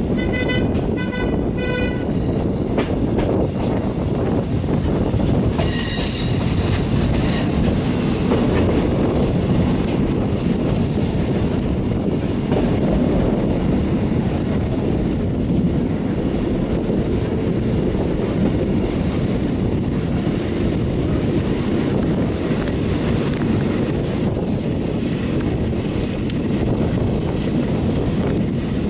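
Steam-hauled passenger train of the 231 G 558 rolling along, heard from an open carriage window as a steady rumble of wheels on rail mixed with wind. A level-crossing bell rings in quick pulses in the first two seconds. About six seconds in, the locomotive's steam whistle sounds once for about two seconds.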